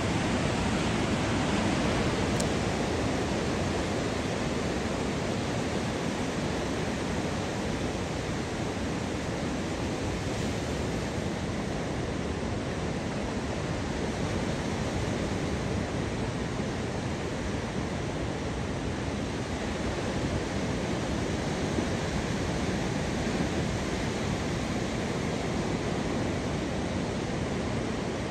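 Ocean surf breaking and washing up a sandy beach, a steady rush of noise.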